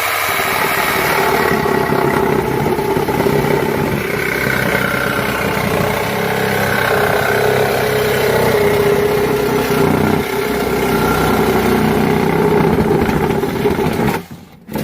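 Ryobi 18V cordless reciprocating saw running under load as it cuts, its motor pitch wavering steadily, then stopping about a second before the end.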